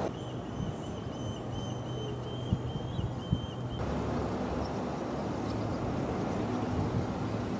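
Steady outdoor background with a low hum and a few light clicks. A faint, high, repeating chirp runs through the first half and stops abruptly about halfway, where the background changes.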